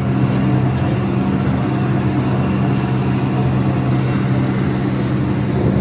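Poultry-house exhaust fans running with a steady low hum and a rush of air. These are underpowered fans, said to be too weak even to open their own shutters.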